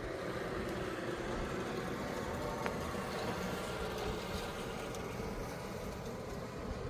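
Steady noise of city street traffic.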